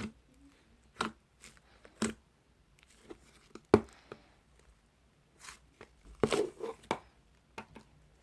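Stretchy cheddar-cheese-style slime being stretched and squished by hand, giving irregular sticky pops and crackles about a second apart, with a busier run of them about six seconds in.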